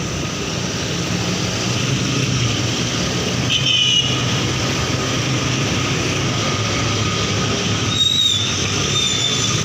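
Steady mechanical background noise with a low hum, of a vehicle or traffic kind, with two brief high squeaks, about three and a half and eight seconds in.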